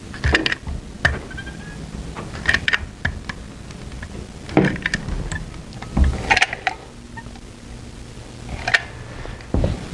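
Manual caulk gun being squeezed as a sealant bead is laid, its trigger and plunger rod clicking and knocking at irregular intervals, every second or two.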